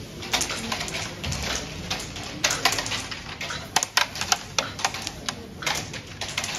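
Carrom pieces and striker clacking on a wooden carrom board during the opening break: a scatter of sharp wooden clicks in quick clusters as the pieces hit each other and the board's frame, the loudest a few seconds in.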